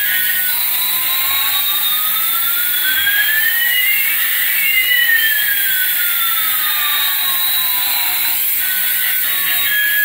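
Electronic jet-engine sound effect: two whining tones, one rising and one falling, crossing about four seconds in, over a steady hiss.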